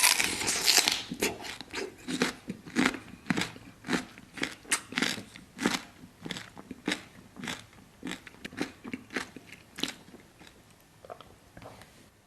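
Close-miked biting and chewing of crunchy watermelon: one loud bite at the start, then crisp crunches about two a second that fade away near the end.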